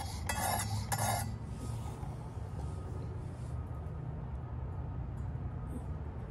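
Abrasive stone of a Work Sharp guided knife sharpener scraping along a knife edge in quick back-and-forth strokes, about two a second, stopping about a second in. After that only a faint low background hum remains.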